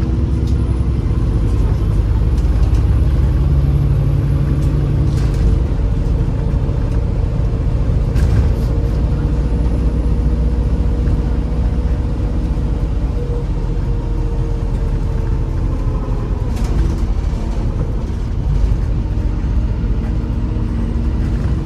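MAZ-203 city bus in motion, heard from inside: steady engine drone and road rumble with slowly shifting engine tones, and a few short rattles or knocks from the body.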